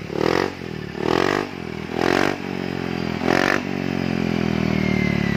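Yamaha XMAX 250 scooter's single-cylinder engine blipped four times, then dropping back to a steady idle. It is heard through a tinny exhaust whose muffler baffling has been gutted ('bobokan'), as the mechanic judges it.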